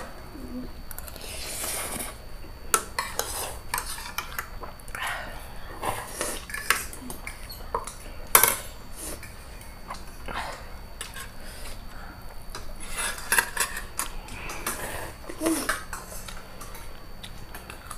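Metal forks clinking and scraping on ceramic plates during a meal, in scattered irregular clicks, the sharpest about eight seconds in.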